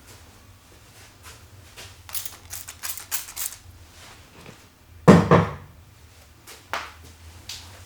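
Hands working over a head and skin in a massage: a run of quick brushing, slapping strokes, then one loud, sharp smack with a heavy thud about five seconds in, and a smaller sharp hit a second and a half later.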